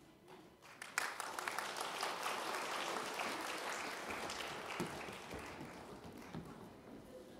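Audience applauding, starting about a second in after the music fades, then slowly dying away.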